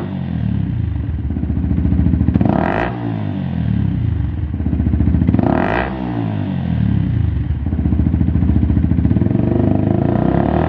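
Yamaha YZF-R125's 125 cc single-cylinder four-stroke engine running through a Lextek GP8C aftermarket silencer, blipped about every three seconds, the revs climbing and dropping back each time, then running steadily near the end.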